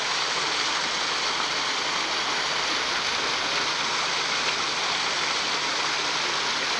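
Small waterfall rushing steadily down rocks.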